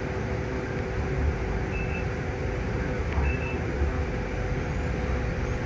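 Inside a city bus: the steady rumble and hum of the bus running as it moves slowly, with two short, faint high beeps about two and three seconds in.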